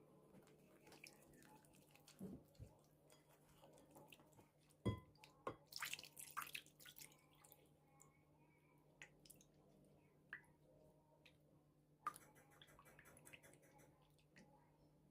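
Quiet kitchen handling sounds: scattered faint clicks and small wet taps, busiest about five to seven seconds in and again near twelve seconds, over a low steady hum.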